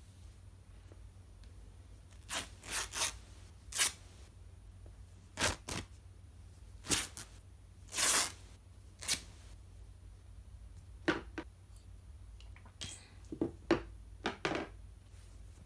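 An old bedsheet being torn by hand into rags: a dozen or so short ripping sounds at uneven intervals, with one longer rip about eight seconds in.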